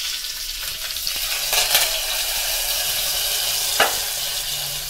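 Hot-oil tempering of mustard seeds, urad dal, cumin, dried red chillies and curry leaves sizzling in a small tempering ladle and as it is poured into cooked dal, flaring louder about a second and a half in. A single sharp tap near the end.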